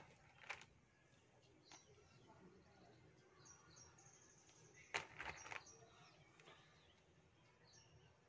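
Sharp crunches of a piece of dry edible clay being bitten and chewed. There is one about half a second in, and a louder quick cluster of three or four about five seconds in. Faint bird chirps sound in between.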